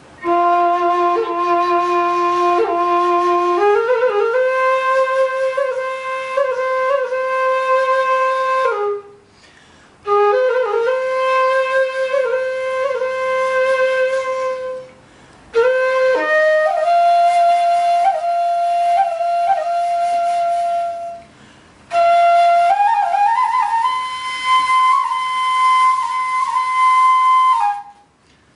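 Solo flute music: slow phrases of long held notes with small ornaments between them, in four phrases separated by brief pauses.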